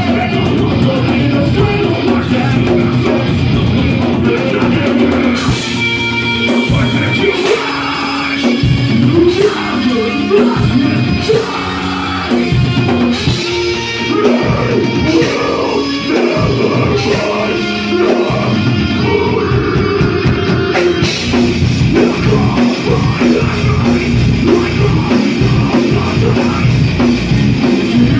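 Live heavy rock band playing loudly, heard from the audience: distorted electric guitars, bass and a drum kit, with a singer at the microphone.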